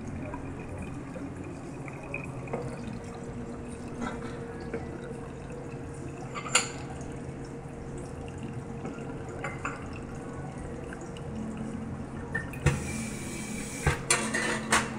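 Brewed coffee dripping through a paper filter in a ceramic pour-over dripper into the cup below. There is a single knock about six and a half seconds in, and a few ceramic clinks near the end as the dripper is lifted off the cup.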